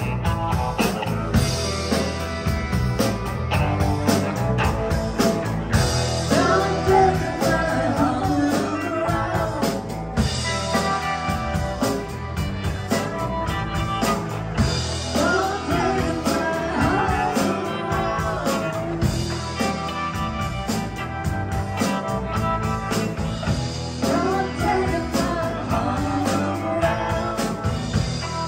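Live rock band playing loudly: electric guitars, bass and drum kit, with a woman singing lead in phrases over them.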